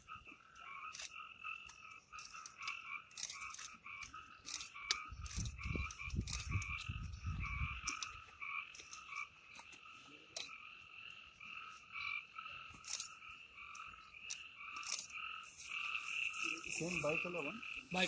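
A chorus of frogs calling at night, a steady pulsing trill at two pitches with scattered sharp clicks throughout. A low rumble comes in about five seconds in and fades out around eight seconds.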